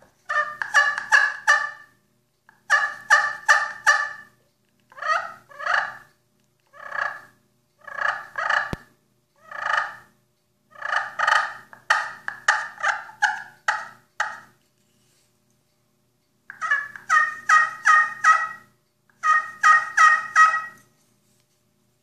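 Double slate-over-slate turkey pot call in bird's eye maple, played with a red haw striker: runs of four to seven quick turkey notes at about three a second, with a few single notes spaced about a second apart in the middle.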